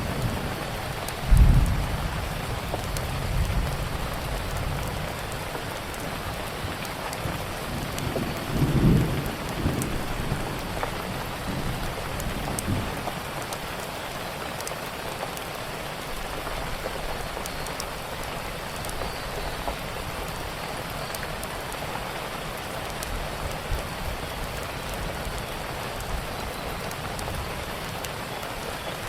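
Steady rain falling, with scattered small crackles of a wood fire. Two brief low rumbles come about a second and a half in and again near nine seconds.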